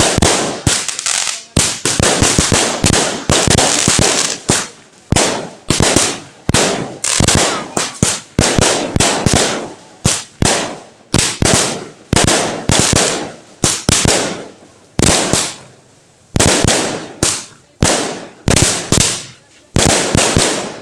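Fireworks going off: rapid crackling bangs in repeated bursts, each bursting sharply and dying away, about one burst a second.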